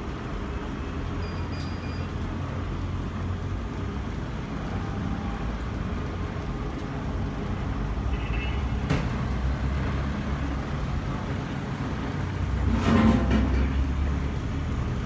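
Steady low rumble of street traffic, with a few faint brief sounds and a louder passage near the end.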